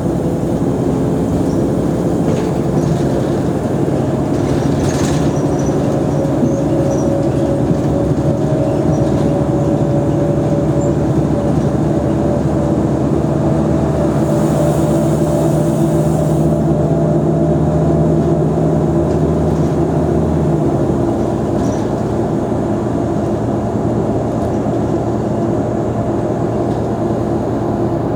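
Diesel engine of a Mercedes-Benz O345 Conecto G articulated city bus running under way, its pitch climbing slowly as the bus pulls. About 21 seconds in, the low engine note changes abruptly, as at a gear change or lift-off.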